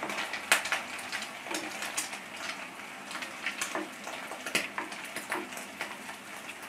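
Egg-coated potato chops shallow-frying in oil, sizzling steadily with irregular sharp pops and crackles, as a wooden spatula turns them in the pan.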